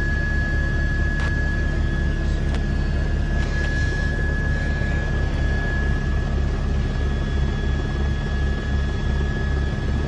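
News helicopter's rotor and turbine noise picked up by the onboard microphone: a steady low throb with a fast pulsing beat and a constant high whine. A couple of sharp clicks about one and two and a half seconds in.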